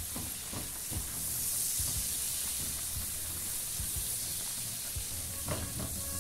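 Sliced garlic and chopped parsley sizzling gently in olive oil and butter in a frying pan over low heat. A spatula stirs and scrapes the pan, giving a few soft knocks.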